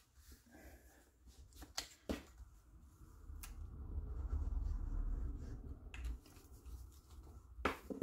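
A glue stick rubbed back and forth over a strip of patterned paper on a craft mat: a dull rubbing lasting about three seconds in the middle. Sharp taps of paper and card pieces being handled and set down about two seconds in and near the end.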